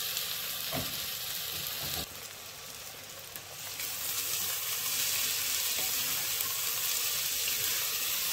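Freshly added chopped onions sizzling in hot oil and ghee in a metal pot, stirred with a spoon. The sizzle drops for a couple of seconds about two seconds in, then comes back louder.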